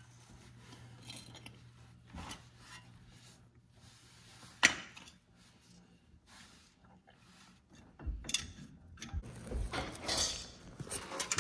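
Hand tools and metal brake parts handled at a truck's front brake caliper: small clinks and taps, with one sharp click about four and a half seconds in. Near the end comes a run of knocks and rustling, all over a low steady hum.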